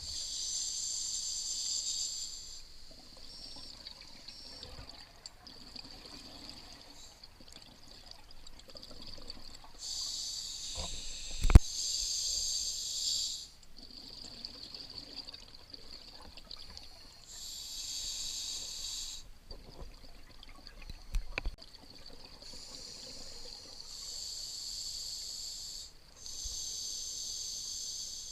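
Scuba diver's exhaled bubbles rushing in bursts of two to three seconds, five times over, with a steady hiss between them. A sharp knock about eleven seconds in, and a smaller click near the end.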